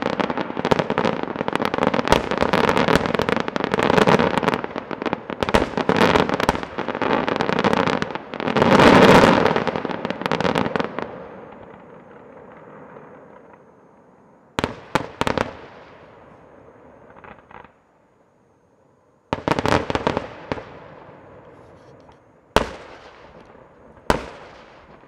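Aerial fireworks display: a dense, rapid barrage of shell bursts and crackle for about the first ten seconds, loudest around nine seconds in, then dying away. After that come scattered clusters of bangs and then a few single loud reports, each trailing off in an echo.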